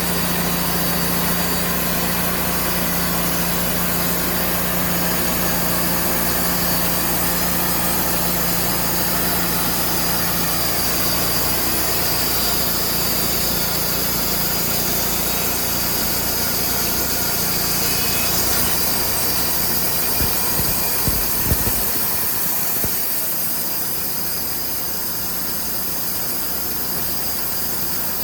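Wood-Mizer portable bandsaw sawmill running steadily. A few sharp knocks come about three-quarters of the way through, after which the low rumble drops away.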